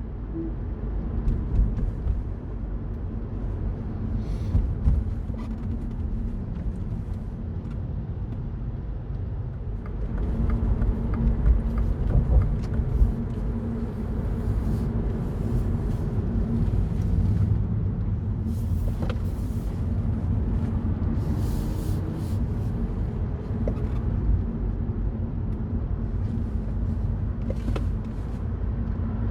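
Mini Cooper Cabrio driving, heard from inside the cabin: a steady low rumble of engine and road noise with a faint engine hum, getting louder about ten seconds in. Brief hissing swells come and go several times.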